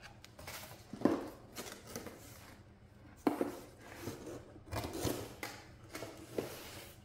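A cardboard box being handled and opened on a tabletop: the box slid out of its cardboard sleeve, set down and its tuck-in lid pulled open, giving sharp knocks and rustling scrapes of cardboard.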